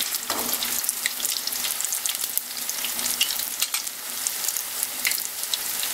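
Battered pumpkin and pumpkin-seed fritters frying in hot oil in a wok, a steady sizzle with a dense crackle of fine pops.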